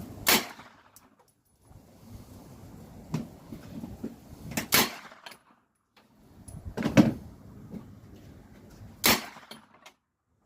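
Uzi submachine gun fired in single shots: four loud shots spaced about two seconds apart, with a fainter report between the first two.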